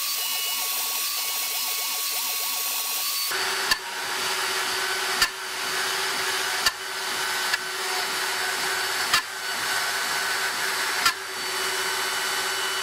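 CNC router's water-cooled spindle spinning a long bit and plunging repeatedly into MDF to cut through-holes, with a vacuum running at a nozzle beside the bit. Under the steady drone come short sharp sounds about every second and a half from about a third of the way in. The long bit is struggling to clear its chips.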